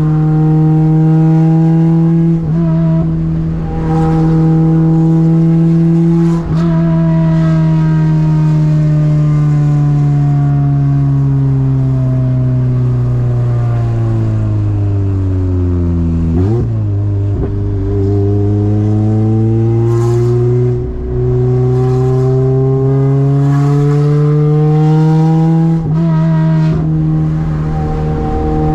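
Toyota 2ZZ four-cylinder engine droning under way at a steady pitch, then easing off so the pitch sinks slowly to a low point about halfway, before climbing back up under acceleration. A few short knocks and brief dips in level break in along the way.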